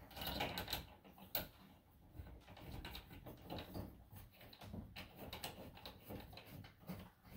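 Faint scattered clicks and light scraping as a light fixture's canopy cover is pushed up and fitted against the ceiling, with a few sharper taps along the way.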